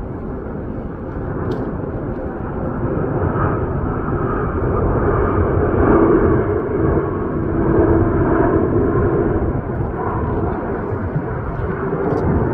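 Jet airliner on its landing approach, engine noise swelling to a peak about halfway through with a low drone, then easing off a little.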